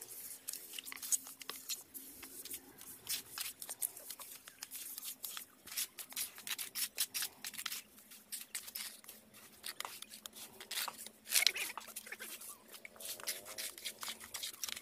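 Steel masons' trowels scraping and tapping in wet cement mortar: scooping it from a metal pan and bucket and spreading it onto a brick structure, in many short, irregular strokes.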